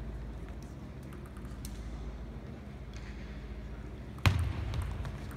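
Table tennis play: a few faint taps of the ball, then a sharp crack of the ball off the bat about four seconds in, followed by a low thud of feet on the court floor, over the steady low hum of the hall.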